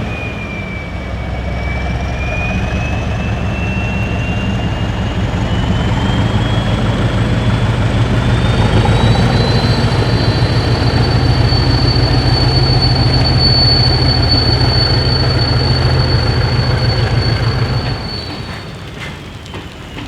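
CP Series 1400 diesel locomotive working hard with its turbochargers screaming. A high whine climbs steadily in pitch over the first several seconds and holds over a heavy engine rumble. Near the end the rumble drops away and the whine falls.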